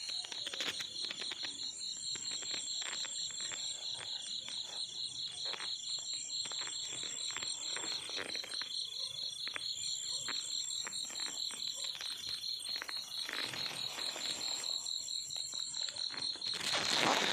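Night insects, crickets, keeping up a steady high pulsing trill, with scattered clicks and rustles and a louder rustle near the end.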